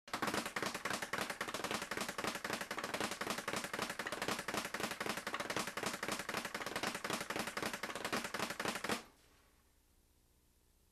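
Leather speed bag being punched in a fast, steady rhythm, rebounding off the wooden platform in a rapid stream of sharp impacts. The rattle stops suddenly about nine seconds in.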